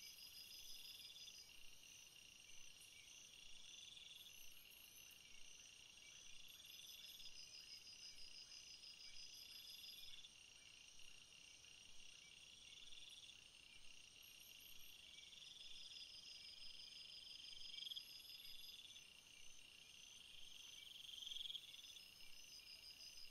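Faint insect chorus: steady high chirping, with a louder trill swelling and fading about every two seconds and faster pulsing trills above it.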